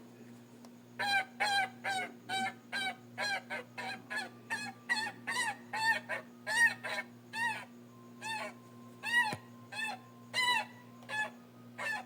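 Giant-goose creature sound effect: a rapid series of goose honks, two or three a second, each rising then falling in pitch, starting about a second in, over a steady low hum.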